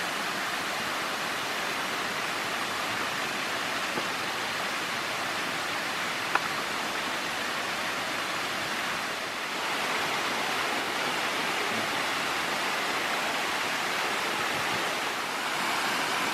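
Steady, even rushing of a waterfall, with one brief sharp click about six seconds in.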